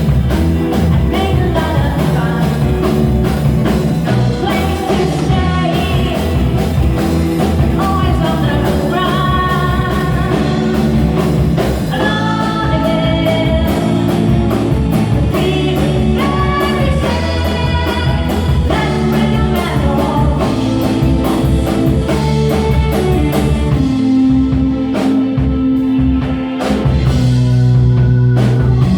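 Rock song with singing over a band of drum kit, guitar and keyboards. Near the end the singing gives way to long held chords.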